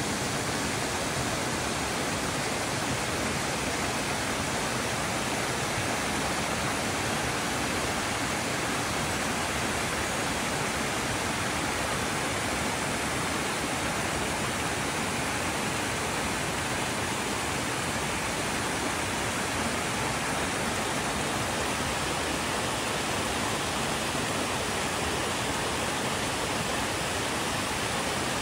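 Flowing water rushing steadily, an even, unbroken hiss.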